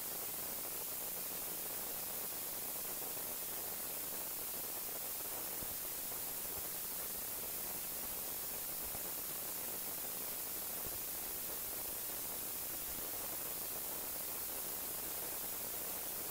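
Steady, even hiss like static, brightest in the high treble and unchanging throughout, with no distinct stirring or tapping sounds standing out.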